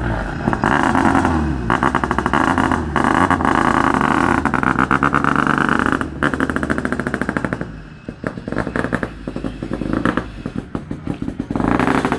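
Toyota Corolla S2000 rally car's naturally aspirated four-cylinder engine at high revs, rising and falling in pitch as it works through the gears. It fades about eight seconds in, with a run of rapid crackles, and comes back loud near the end.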